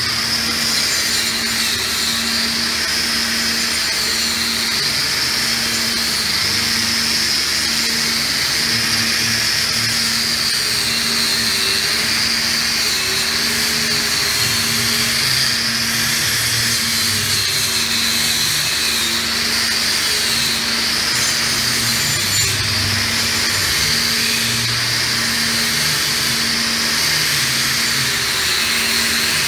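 Angle grinder running against a welded steel pipe joint, its high whine wavering up and down in pitch.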